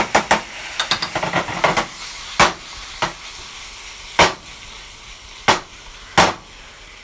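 Sliced steak sizzling in a nonstick frying pan while it is stirred and the pan is tipped and moved on the gas stove's grate: sharp knocks and scrapes of utensil and pan, a quick run of them in the first two seconds, then single knocks about once a second over the sizzle.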